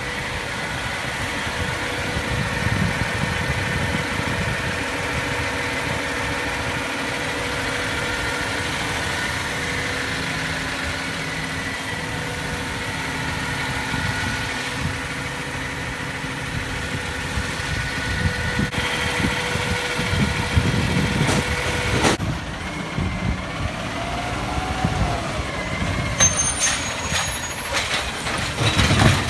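Garbage truck engine running steadily, with a held whine over its rumble. The sound changes abruptly about three-quarters of the way through, followed by uneven knocks and clicks.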